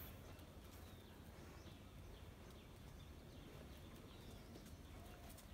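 Near silence: faint ambience with a few faint, short bird chirps scattered through it.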